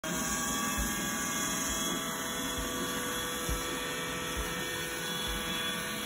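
Roomba robot vacuum running: a steady whirring hum of its vacuum motor and brushes with a high whine, plus a soft low thump about once a second.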